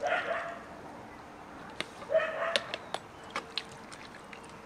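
Two short animal calls, one right at the start and one about two seconds in, with a few light clicks and clinks in between and after.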